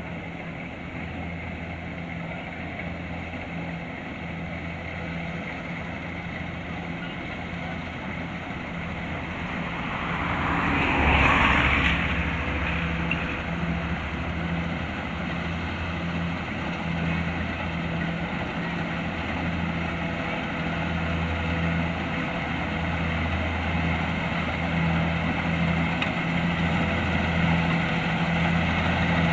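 Kubota DC-70 Plus rice combine harvester's diesel engine running steadily at working speed. A louder rushing noise swells briefly about ten to twelve seconds in, and the machine grows gradually louder toward the end.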